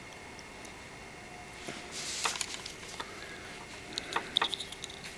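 Quiet handling noise: scattered small clicks, with a brief rustle about two seconds in and a few more clicks near the end, as a tiny screw and screwdriver are fumbled into a toy quadcopter's motor mount.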